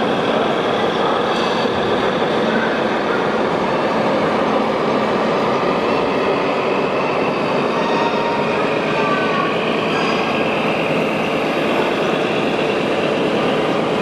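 Steady crowd murmur filling a large exhibition hall: many voices blending into a dense, even background noise.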